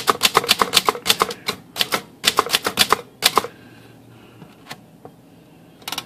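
Remington Remie Scout manual typewriter being typed on: a quick run of sharp typebar clacks, several a second, with the carriage stepping along under its newly replaced draw band. The clacks stop about three and a half seconds in, and one more keystroke comes near the end.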